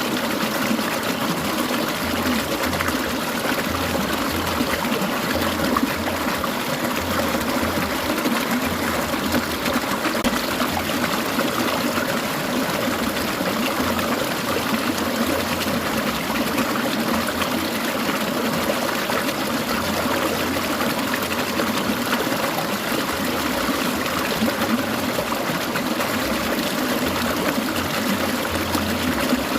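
Clear mountain stream babbling and trickling over rocks in a steady, unbroken flow.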